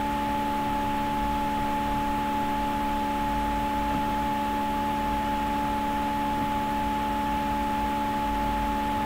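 Steady hum and hiss from the recording's background: several constant tones over an even noise, unchanging throughout.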